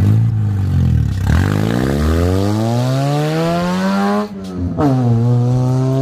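Honda CR-V exhaust with no catalytic converter, very loud as the car accelerates away. The revs climb steadily, drop sharply at a gear change about four seconds in, then rise again and level off.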